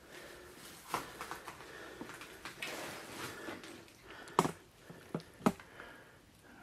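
Footsteps and rustling through debris on a cluttered floor, with a knock about a second in and two sharper knocks about a second apart in the second half.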